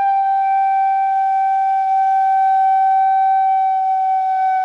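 One long held note on a bamboo pífano (Brazilian transverse fife), a clear whistle-like tone that sags slightly flat toward the end. It is a deliberately exaggerated example of a long note that loses its tuning as the air pressure drops.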